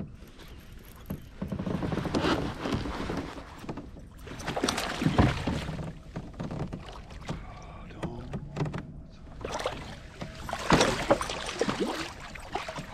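Water splashing and sloshing beside a kayak as a hooked largemouth-type bass is fought at the side and scooped up in a landing net, in several bursts about 2, 5 and 11 seconds in.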